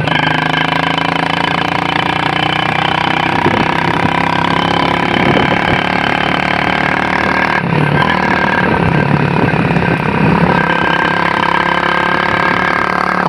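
Hero Splendor motorcycle's single-cylinder four-stroke engine running through a newly fitted homemade exhaust, a steady engine note that wavers a few times around the middle.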